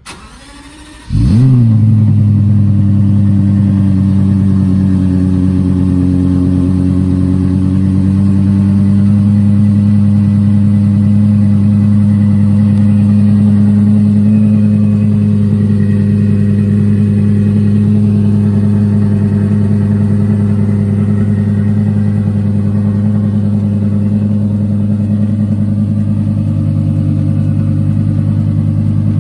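Lexus LFA's naturally aspirated 4.8-litre V10 starts up about a second in with a brief rev flare, then idles steadily, the idle easing down slightly over the next several seconds. The idle note shifts a little near the end.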